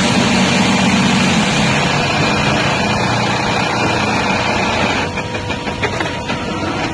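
Industrial pattern sewing machine and factory machinery running, a steady mechanical hum and whir with a few clicks about five seconds in, where it eases off slightly.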